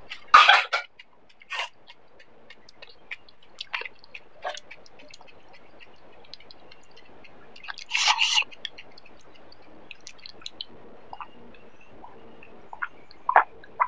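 Close-up mouth sounds of a person chewing and swallowing a mouthful of panipuri: small wet clicks throughout, with two louder wet mouth noises about half a second in and about eight seconds in. Near the end come a few quick gulps of water from a glass mug.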